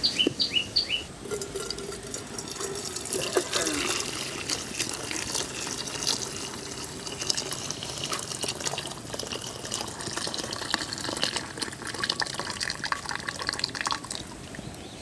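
Hot pepper rasam (kali menasu saaru) being poured out of the pot: a steady splashing of liquid with scattered small clinks.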